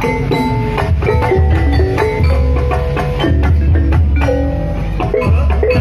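Gamelan-style ensemble music accompanying an ebeg (Banyumas kuda lumping) trance dance: struck keyed instruments ringing out a busy melody over repeated deep drum strokes.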